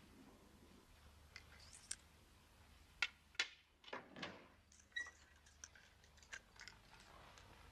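A hushed room with a few faint, irregular small clicks and soft handling rustles. Two sharper clicks come about three seconds in.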